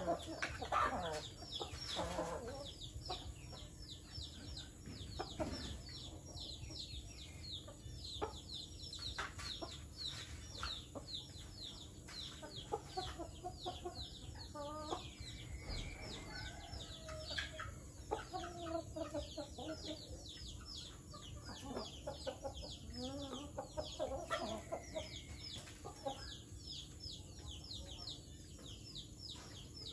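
Chickens clucking, with scattered louder pitched calls, over a continuous stream of rapid high chirping.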